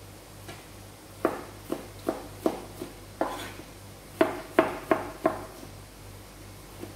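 Kitchen knife chopping tomatoes on a plastic cutting board: about ten sharp, irregular knocks starting about a second in, loudest around four to five seconds in, then stopping, over a steady low hum.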